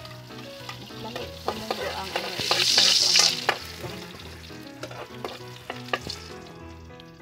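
Oil sizzling in a metal frying pan while a utensil stirs and scrapes against the pan, making scattered clicks. The sizzle swells loudest about three seconds in, then settles back.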